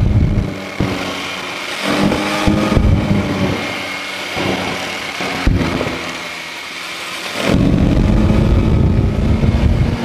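Yamaha MT-09 SP's three-cylinder engine ridden through bends. It runs loud under throttle at first, then quieter for several seconds with the revs rising and falling as the rider eases off and picks up again, and opens up loudly once more about three quarters of the way in.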